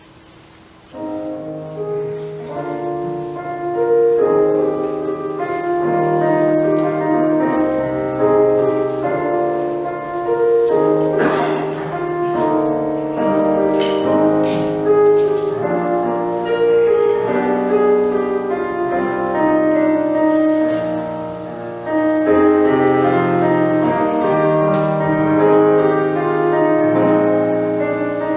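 Keyboard instrumental music of slow, sustained chords, starting about a second in.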